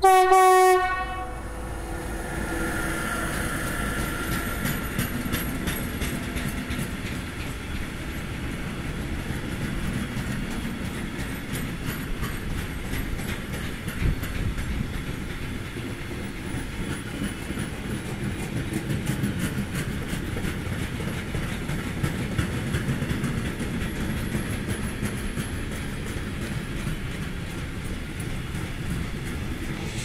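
Class E186 electric locomotive (Bombardier TRAXX) sounds its horn in one short, very loud greeting blast, then a long freight train of open wagons rolls past, its wheels clicking steadily over the rail joints.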